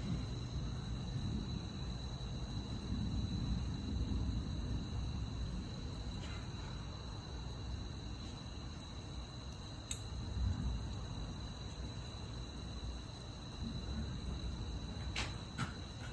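Crickets trilling steadily in one unbroken high note over a low, uneven rumble. There is a sharp click about two-thirds of the way through and a few more near the end.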